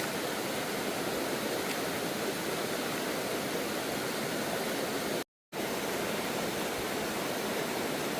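Steady rushing water of a waterfall, broken once by a brief gap of silence about five seconds in.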